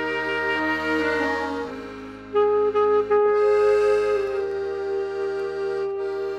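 Saxophone and accordion music: the saxophone plays a slow melody in long held notes over the accordion's sustained chords and bass.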